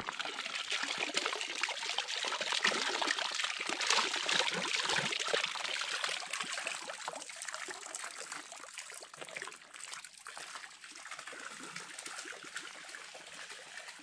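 Small stream of water trickling and splashing, loudest over the first several seconds and easing off a little after the middle.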